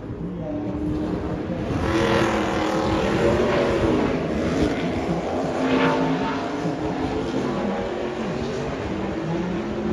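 A NASCAR Truck Series race truck's V8 engine running laps around the track, heard from the grandstand. Its pitch rises and falls again and again as it accelerates and lifts, and it is loudest a few seconds in.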